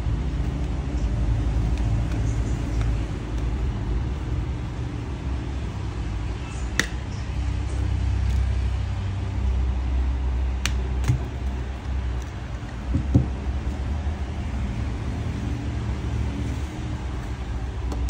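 A steady low rumble of traffic-like background noise, with four short sharp clicks scattered through the middle: the clips of a phone's plastic back cover snapping loose as it is pried off by hand.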